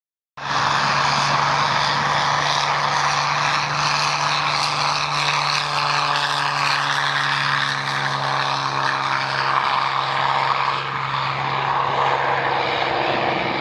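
Piston-engined propeller aircraft droning steadily in flight, one even engine note, its pitch dipping slightly about ten seconds in.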